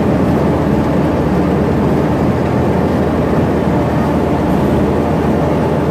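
Amphibious duck boat's engine running steadily while under way on the river, a low hum under a loud, even rushing noise.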